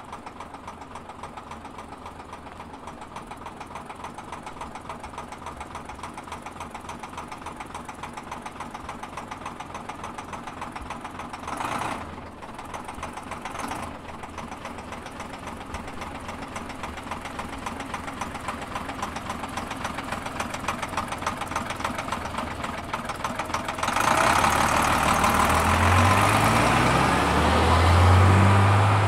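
Leyland National Mk1 bus's Leyland 0.510 8.2-litre fixed-head turbodiesel idling cold with a steady, even knocking beat, with two brief hisses near the middle. About twenty-four seconds in, the engine revs hard and rises in pitch as the bus pulls away, getting much louder.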